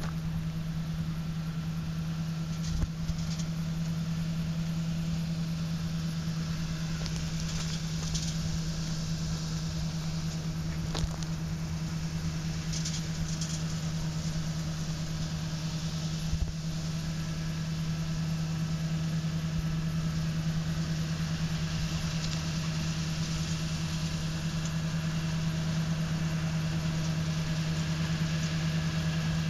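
Grape harvester's engine running steadily, a constant drone that grows slightly louder in the second half as the machine comes down the vine row. A few brief faint knocks.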